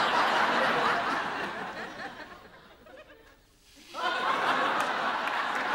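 Studio audience laughing. The laughter swells, dies away about three seconds in, then breaks out again in a fresh burst about four seconds in.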